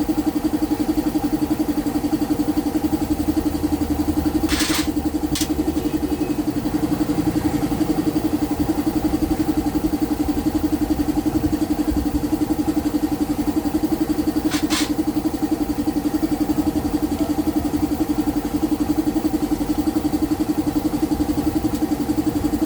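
Kawasaki Fury 125 motorcycle engine idling steadily with a fast, even beat after its carburetor has been cleaned. Two brief hissing bursts come through, one about five seconds in and one about fifteen seconds in.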